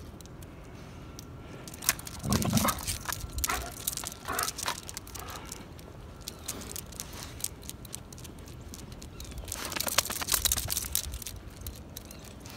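Crunching, clicking footsteps of a person and a trotting dog on pavement. The steps come scattered, with a louder knock about two seconds in and a dense run of crunching around ten seconds in.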